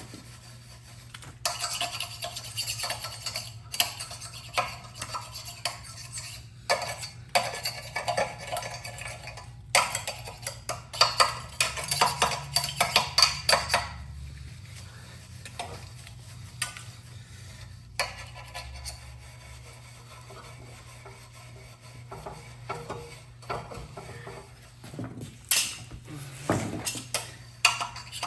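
Metal parts being scrubbed and scraped by hand, in spells of rapid scratching mixed with metallic clinks, over a faint steady low hum.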